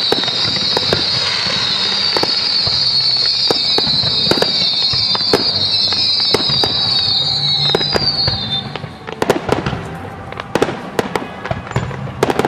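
Aerial fireworks going off: a dense, continuous crackle and sizzle of bursting stars for about the first eight seconds, then it thins out to scattered sharp cracks and bangs.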